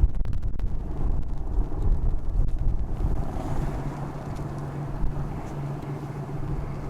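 Wind buffeting the microphone, strongest in the first three seconds, with a faint low steady hum underneath from about three seconds in.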